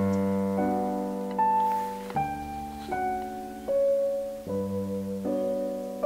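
Background music: slow piano, sustained chords with a melody above them, a new note or chord starting less than a second apart and each fading as it rings.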